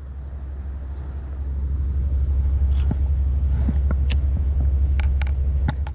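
Wind buffeting the microphone: a steady low rumble that grows louder about two seconds in. A handful of sharp clicks from a baitcasting reel being handled in the second half.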